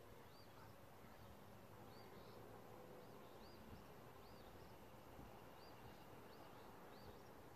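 Near silence with faint, high, repeated chirps from a small bird, one or two a second.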